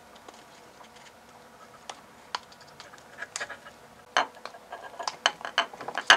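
Small, clicky handling sounds of a hard plastic battery pack casing being cut open: scattered clicks and scrapes, sparse at first, then coming thick and fast in the last two seconds, with one sharp click near the end.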